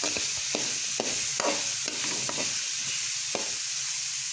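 Chopped onions, green chillies and ginger-garlic sizzling in hot oil in a metal pan while a metal spoon stirs them, scraping the pan about twice a second. The onions are being sautéed with salt until soft.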